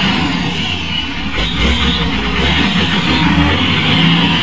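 Lonking CDM833N wheel loader's diesel engine running steadily under load as the machine works a sand pile.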